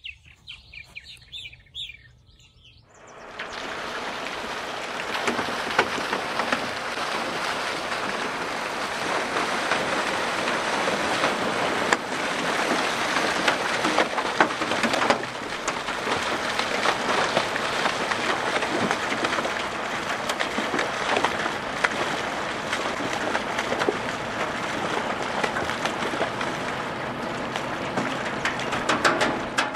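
Water gushing out of a fish-stocking discharge pipe and splashing into a lake as fish are flushed out with it. It is a loud, steady rush with sharp splashes all through, starting about three seconds in after faint bird chirps.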